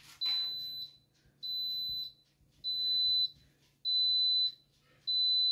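Mika electric pressure cooker beeping five times, high and even, about one beep every 1.2 seconds, each about half a second long: its cooking timer has run out and the cake is done.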